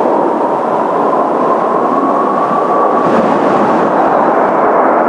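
Jet noise from Blue Impulse Kawasaki T-4 trainers: a steady, loud roar with a faint engine whine that rises slightly over the first few seconds.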